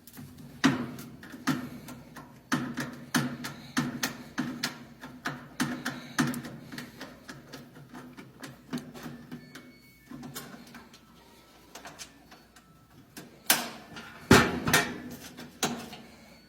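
Irregular clicks and clacks of a nut driver and metal parts being handled as the ground screw of a Whirlpool washer's lid switch is taken off, with a louder run of knocks near the end.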